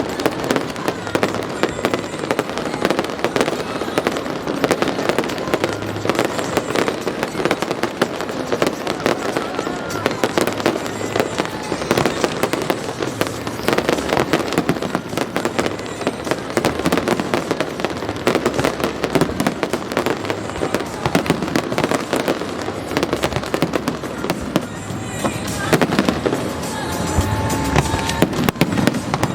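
Fireworks display going off continuously: a dense run of crackling and bangs from aerial shells, with music playing underneath.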